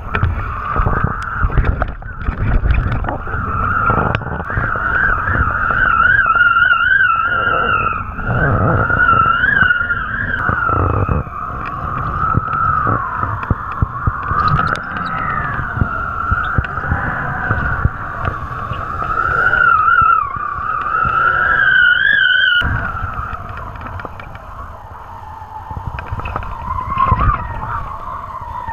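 Wind rushing and buffeting a camera mounted on a kite in flight, with a high whistle that wavers up and down in pitch. The rush eases for a few seconds near the end.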